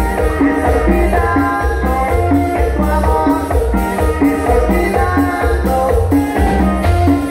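Live dance band playing Latin dance music over the stage sound system, with electric guitar and keyboard over a steady beat and a repeating bass line.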